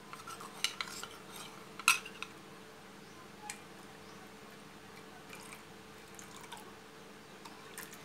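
A metal spoon clinking and scraping against a ceramic bowl a few times in the first two seconds, the loudest clink about two seconds in, as the custard-powder mixture is tipped out into the pan of milk. Then only a few faint clicks over a low steady hum.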